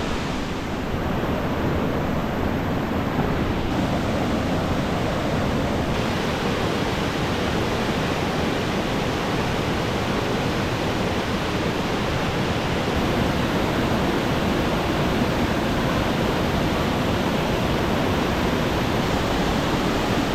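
Waterfall: a loud, steady rush of falling water, a little louder after the first second.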